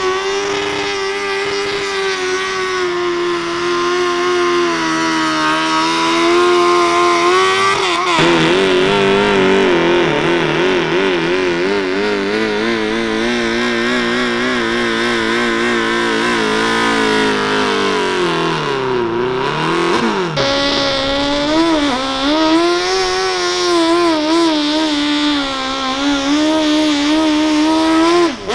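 Engines of modified 1500cc garden pulling tractors running hard at high revs as they drag a weight-transfer sled. The pitch wavers throughout and sags, then recovers, a little before the twenty-second mark.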